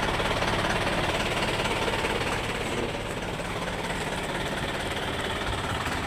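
Minibus coach engine idling steadily.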